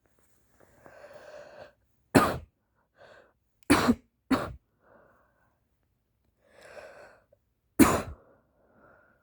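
A person with a stuffy head cold sneezing four times: a drawn-in breath, one sneeze, then two close together, and after another breath a fourth.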